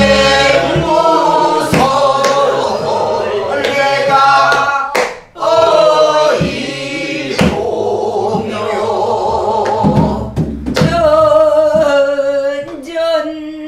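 Pansori singing by a small group of learners and their teacher in turn, slow, wavering sung lines. Sparse strokes on buk barrel drums keep the beat.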